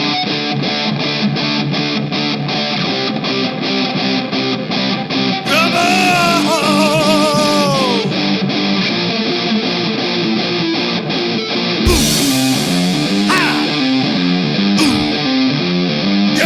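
Ska band music with guitar: evenly spaced short chords at about three a second, and a wavering, falling pitched line about six to eight seconds in.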